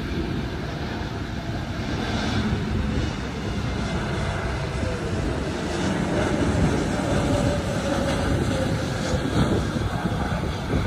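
Airbus A321neo jet airliner on final approach, its turbofan engines a steady rumble that slowly grows louder as it comes nearer, with a faint whine in the middle.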